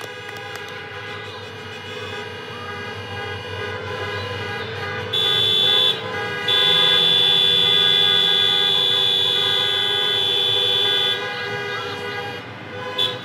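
Several vehicle horns honking at once, overlapping steady tones that build in loudness, with one loud horn held for about six seconds after a short blast and brief break.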